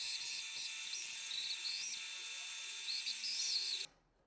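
Benchtop bandsaw running, its blade cutting a sheet of plastic handle material: a steady high whine with short rising and falling squeals as the blade bites. It stops suddenly near the end.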